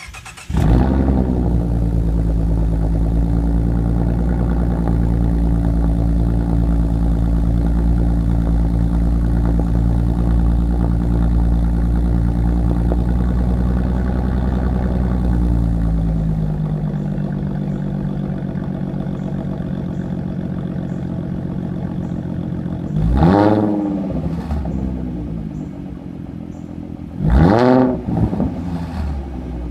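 A 2015 Ford Mustang's 3.7-litre V6, breathing through a Roush axle-back exhaust and a universal X-pipe, starts about half a second in and then idles high and steady. About halfway through, the idle drops to a lower note. Near the end the engine is revved twice in short blips, each rising and falling within about a second.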